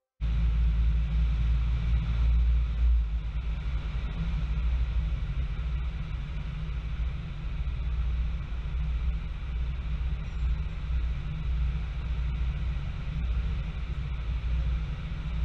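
Robin DR400 light aircraft's piston engine and propeller droning steadily in flight, heard inside the cockpit. It cuts in abruptly at the start.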